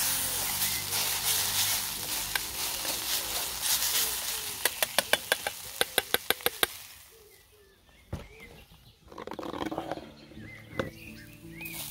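Fried rice sizzling as it is stirred in a Trangia camping-stove pan, then about a dozen quick sharp taps, around six a second, as the spoon is knocked against the pan. After that it goes quieter, with some soft scraping and one more click near the end.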